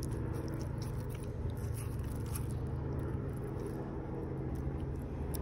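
Steady low background rumble, with faint irregular clicks and scrapes from a metal lure and hook being worked free of a small bass's mouth by hand.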